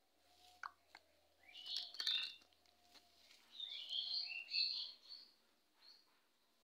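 Small birds chirping in two short bursts of quick, high twittering notes, about a second and a half in and again around four seconds in, with a few light clicks.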